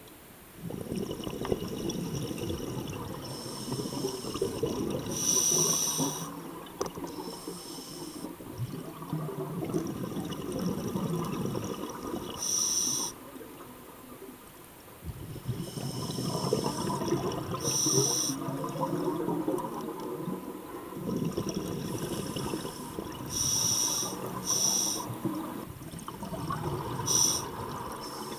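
Scuba diver breathing through a regulator underwater. Short hissing inhalations through the demand valve recur every few seconds, between long stretches of bubbling from exhaled air.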